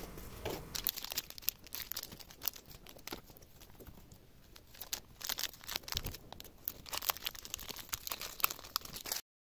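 Thin clear plastic wrapping crinkling and tearing as it is peeled off a desk lamp's flexible stem, in irregular crackles that thin out for a moment midway. The sound cuts off abruptly near the end.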